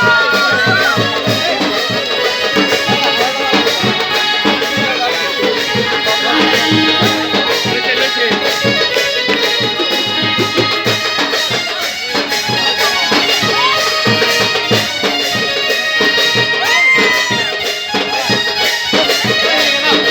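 Instrumental music in a traditional style, with a steady beat under held melody notes.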